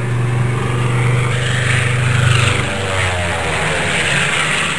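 Light propeller aircraft running, a steady low engine-and-propeller drone with a wide rushing noise over it. Its low hum weakens a little past halfway.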